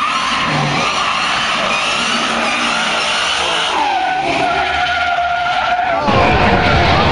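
Ford Mustang's tires squealing and skidding as it accelerates hard and slides sideways, the squeal wavering in pitch. About six seconds in, a louder low rumble takes over.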